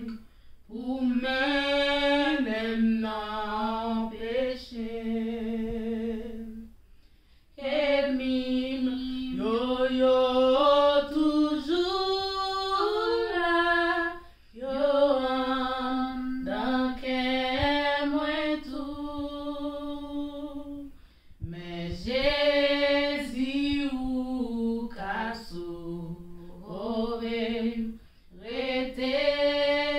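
Two women singing a hymn of praise unaccompanied, in long phrases with short pauses between them.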